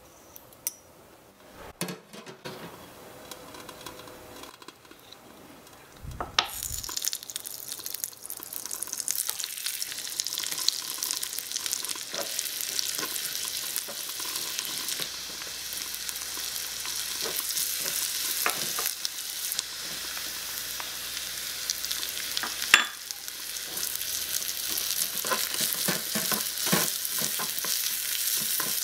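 Sizzling in a miniature aluminium wok over a tiny gas flame, stirred with a small wooden spatula that taps and scrapes against the pan. The sizzle starts suddenly about six seconds in and builds. A sharp clack about 23 seconds in is followed by sliced mushrooms frying. Before the frying, a few light clinks of a small metal spoon in a ceramic bowl.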